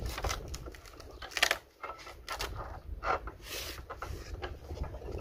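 Scattered light knocks and clicks of things being handled, with one sharper knock about one and a half seconds in, over wind rumbling on the microphone.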